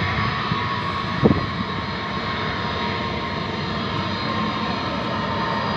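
Four jet engines of an Ilyushin Il-76 freighter running steadily as it moves along the runway: a constant rushing noise with a steady whine on top. A single sharp knock about a second in.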